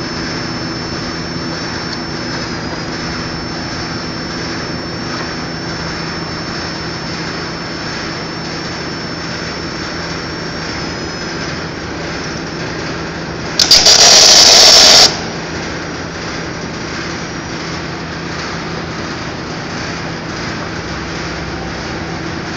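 A welding machine hums steadily, and about two-thirds of the way in an arc weld crackles loudly for about a second and a half: a short stick weld fixing the chain-drive sprocket to its shaft.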